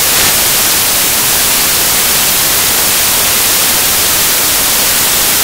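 Loud, steady static hiss, even and unbroken, heaviest in the high pitches.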